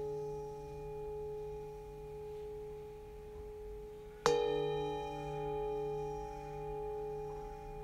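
A ringing metal bell tone, struck once about four seconds in and left to ring and fade slowly, its lower tones wavering in a slow pulse.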